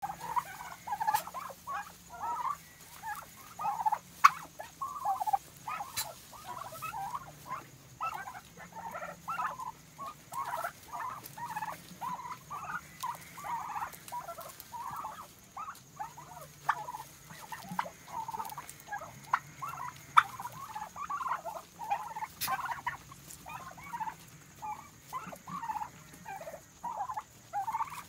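A flock of Bronze Orlopp turkeys calling: hens chirping continuously in many short, overlapping calls, with a few sharp clicks.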